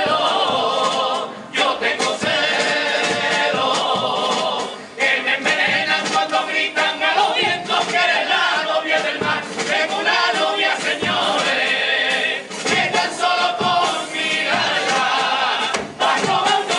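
A chirigota group's male voices singing together in chorus, as in Cádiz carnival song, with guitars underneath.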